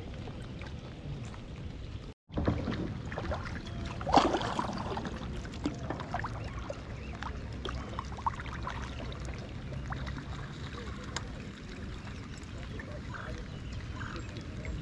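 Steady rain falling on a pond and kayaks, with many small drops tapping. The sound cuts out briefly about two seconds in, and a brief louder noise comes about four seconds in.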